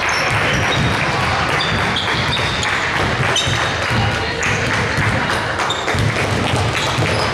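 Basketball bouncing on a hardwood gym floor, with short high sneaker squeaks and indistinct chatter over a steady echoing gym hubbub.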